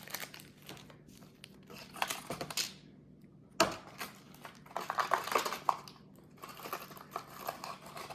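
Small plastic clicks and rustling as a snap-together Transformers building-block figure and its packaging are handled, with one sharp click a little over three and a half seconds in and a run of quick clicks around five seconds.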